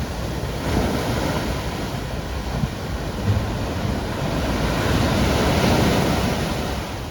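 Ocean waves breaking and washing against the shore, a steady rush that swells and eases, with wind buffeting the microphone.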